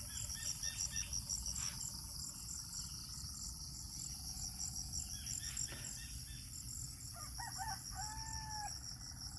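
A rooster crows once, about seven seconds in: a few short notes, then one long arched call. Under it run steady, rapidly pulsing high-pitched insect calls and a low rumble.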